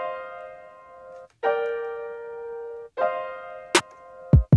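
Sampled piano chords playing back from an Akai MPC Live sequence: three sustained chords, each held about a second and a half before the next. Near the end a few sharp drum hits come in, some of them deep like kick drums.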